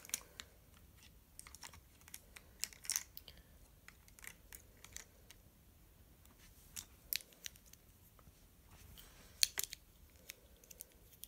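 Plastic pieces of a 3x3x5 twisty puzzle clicking and scraping as they are handled and fitted together by hand: faint, irregular small clicks, with a sharper click about nine seconds in.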